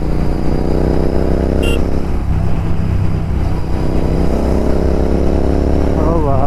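Royal Enfield Continental GT 650's 650 cc parallel-twin engine running through aftermarket Red Rooster exhausts while being ridden. Its pitch climbs under acceleration, drops about two seconds in, then holds steady.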